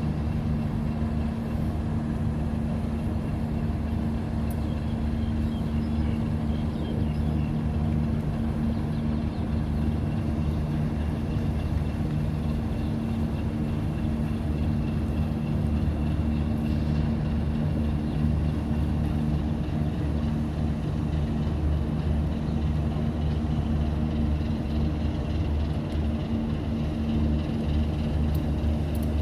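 A large engine running steadily: an even, low drone that does not change in pitch or level.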